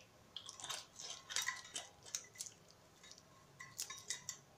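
Light metallic clinks and taps of kitchen utensils against metal containers, coming in irregular clusters.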